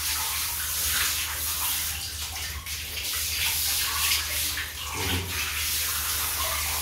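Water from a hose spraying onto a dog's legs and belly and splashing on a plastic slatted floor: a steady hiss of running water that swells and eases. A low steady hum lies underneath.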